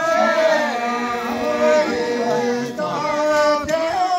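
A group of voices singing together in a chant-like melody, with long held notes and several overlapping lines.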